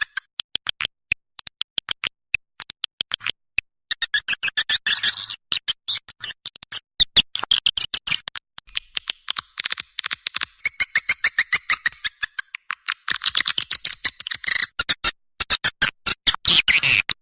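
Recorded swiftlet calls played as a lure: rapid trains of high, twittering chirps and clicks, coming in bursts with short breaks between them.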